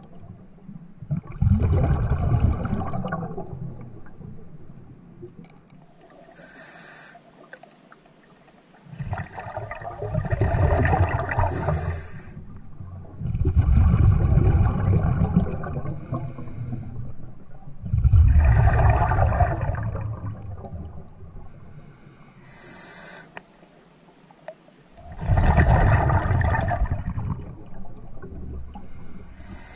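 Scuba diver breathing through a regulator underwater: five long bubbling exhalations a few seconds apart, each one following a short hissing inhale.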